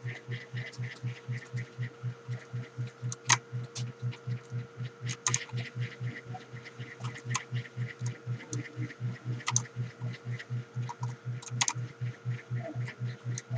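Scattered sharp key clicks from a mechanical keyboard over a steady rhythmic low pulsing, about four to five beats a second, and a constant hum.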